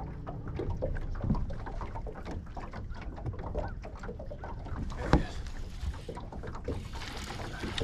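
Lake water lapping against a bass boat's hull under a low rumble of wind, with small clicks and knocks from a spinning reel being cranked. One sharper knock comes about five seconds in, and a rushing hiss comes in near the end.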